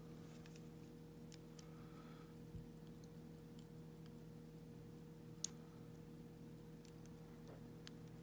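Faint small metallic clicks and ticks from a lock cylinder's parts being handled while it is taken apart, with one sharper click about five and a half seconds in.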